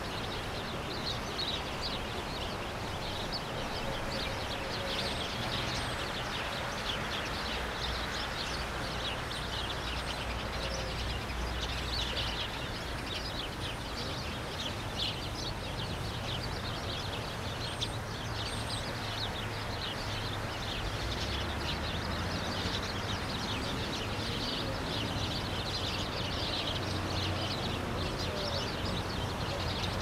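City park lakeside ambience: the steady rush of jet fountains spraying into the lake, with many birds chirping continuously over it and a low rumble of city traffic underneath.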